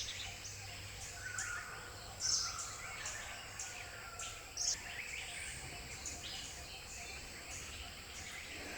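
Wild birds calling in forest: a short, sharp, high call repeats about every two and a half seconds, with softer chirps and whistles between.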